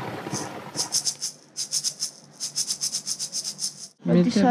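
Title music: a shaker playing a quick, even rhythm over a faint low hum. It cuts off sharply near the end, where a voice begins.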